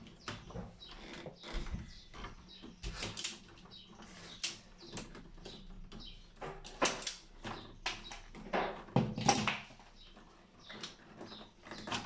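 Plastic-sheathed electrical cables being handled and stripped inside a domestic consumer unit: irregular rustles, scrapes and clicks, loudest in a few bursts in the second half.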